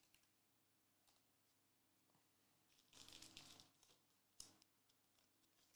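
Near silence, with a faint rustle of a trading card being handled and set down about three seconds in, then a light click a moment later.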